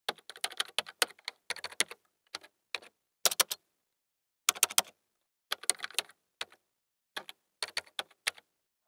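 Typing on keys: quick clicks in short bursts of a few keystrokes each, with pauses between the bursts, like words being typed.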